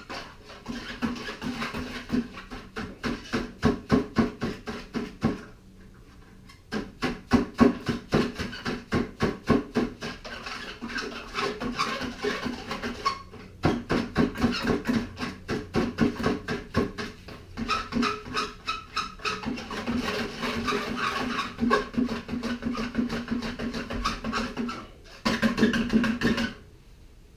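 Broomed-out end of a steel wire rope being washed in a bucket of degreaser: quick rhythmic scrubbing and swishing strokes in runs of several seconds, with short breaks between runs.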